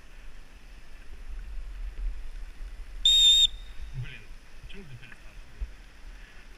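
A single short whistle blast, one steady high tone lasting about half a second, about three seconds in, over a low rumble of wind and riding noise.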